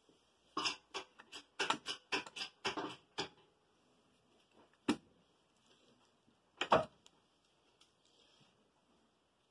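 Sharp metallic clicks and clanks from a 12-valve Cummins cylinder head and its hoist chains as the hanging head is handled: a quick run of clinks over the first three seconds, a single knock about five seconds in and a louder knock near seven seconds.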